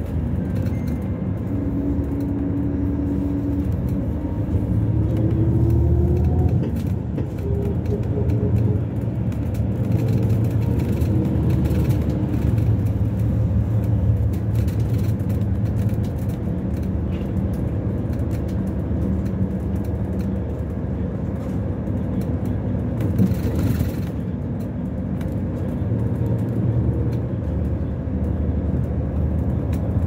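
Engine and road noise heard from inside a moving vehicle: a steady low rumble, with a faint whine rising in pitch a few seconds in as it gathers speed.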